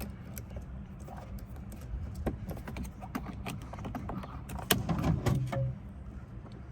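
Scattered clicks and taps of plastic parts and screws being handled as the rear AC evaporator box is reassembled, with a busier, louder cluster about five seconds in, over a steady low hum.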